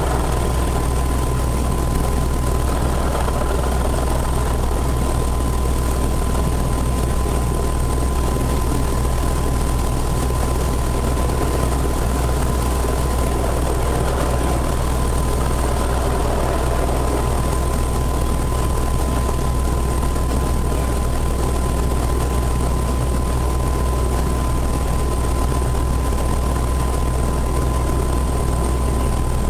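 Airbus EC175 helicopter running on the ground, heard from inside the cockpit: a steady low drone from the engines and rotor, with constant high-pitched whines through it.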